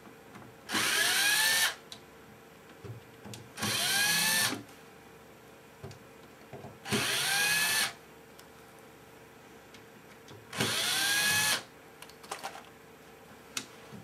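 Cordless drill backing out four screws from a TV's rear faceplate: four runs of about a second each, a few seconds apart, the motor whine rising in pitch as each run spins up. There are light clicks between the runs.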